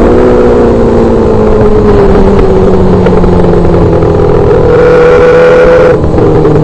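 Micro sprint car engine heard from the cockpit, off the throttle after a high steady note, running at lower revs with its pitch slowly sagging. Near the end it picks up briefly, then drops again about six seconds in.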